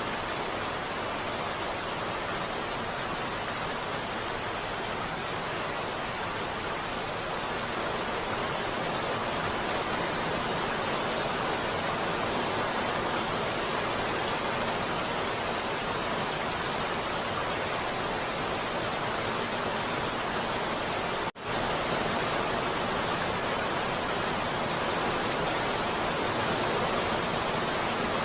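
Heavy rain falling in a steady, even hiss, with a split-second dropout about three quarters of the way through.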